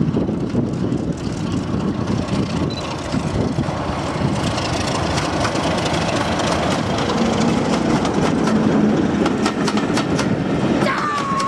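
British Rail Class 33 diesel locomotive with its Sulzer engine running under power as it passes close by, getting louder through the first part. Its train of coaches then rolls past, the wheels clicking over the rail joints.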